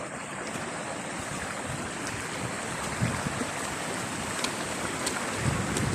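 Steady rushing noise of stormy outdoor weather over floodwater, with a few faint ticks.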